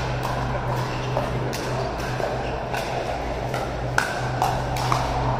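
Pickleball paddles striking a hard plastic pickleball during a rally: a quick run of sharp pops about every half second, the loudest about four seconds in. A steady low hum runs underneath.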